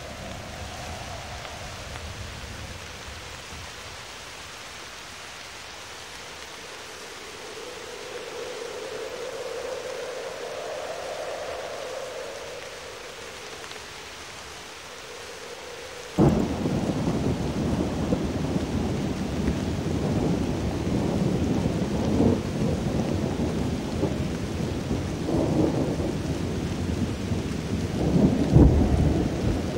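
Thunderstorm recording: after a faint held tone that swells and fades, rain and thunder break in suddenly with a loud crack about halfway through, with more thunderclaps near the end.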